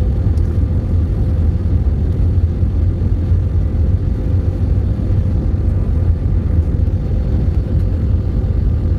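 Steady low roar of a jet airliner's engines and airflow heard inside the cabin during the descent, with a faint steady whine on top.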